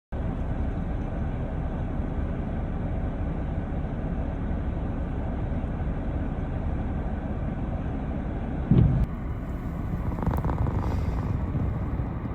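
Steady low rumble of a pickup truck idling, heard from inside the cab, with one brief thump nearly nine seconds in.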